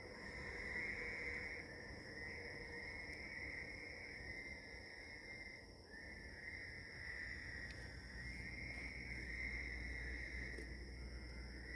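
Night chorus of crickets and other insects trilling nonstop: a shrill band that swells and fades every second or two over a steadier, higher-pitched whine.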